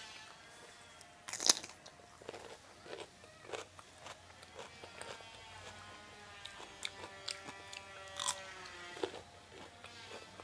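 Close-miked eating: crunching bites and chewing of food, with a sharp, loud crunch about a second and a half in and smaller crunches scattered after it.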